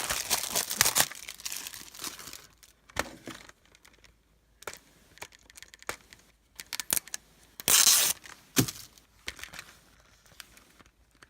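Plastic wrapping being torn and crinkled as it is stripped off a Blu-ray case. It starts with a couple of seconds of steady tearing, then comes in short bursts with pauses, the loudest burst about eight seconds in.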